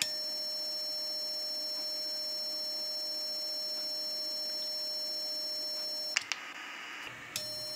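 A steady single-pitch beep from the (tr)uSDX transceiver's sidetone while it is keyed down, sending a test carrier through the SWR meter into a 2:1 mismatch load. The tone cuts off with a click about six seconds in and comes back just over a second later.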